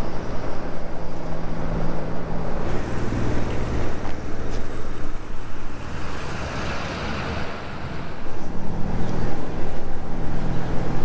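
Steady engine hum from a running motor, fading for a few seconds in the middle and then returning louder.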